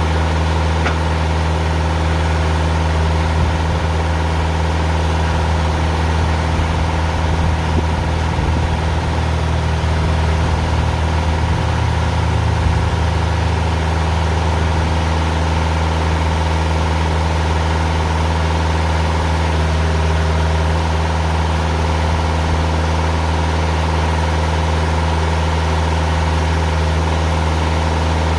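Diesel engine of a TimberKing 2000 sawmill running steadily. Its low note thickens for several seconds, from about three to thirteen seconds in, as the hydraulic log turner takes load to roll the log.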